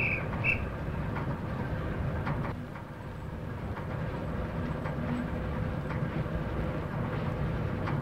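Log-loaded rail trolleys rolling along the track: a steady low rumble with scattered clicks of wheels on rails. Two short high squeaks come right at the start.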